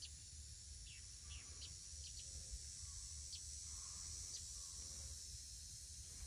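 A steady, high-pitched insect chorus, crickets or similar, with a few short, quick bird chirps scattered through it.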